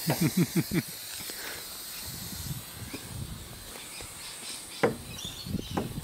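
Festo pneumatic ram's valve venting compressed air from the cylinder: a steady hiss as the cylinder's pressure is released, after a short rattling burst at the start and with a couple of sharp knocks near the end.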